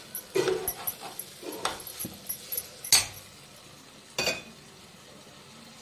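Bowls and utensils handled on a kitchen counter: about five separate clinks and knocks, the sharpest about three seconds in.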